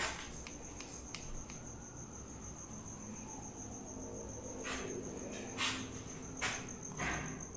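Crickets chirping in a steady, high, pulsing trill, with several short knocks and scuffs scattered through it.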